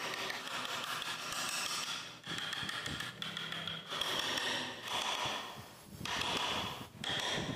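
Hand chisel scraping and paring into carved wood in a series of strokes, each about a second long, with a high squeaky edge.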